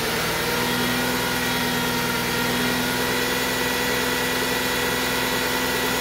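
2002 Ford Mustang's 3.8-litre V6 revved up and held steady at about 2500 rpm for a vacuum-gauge exhaust restriction check. The pitch climbs slightly in the first moment, then stays even.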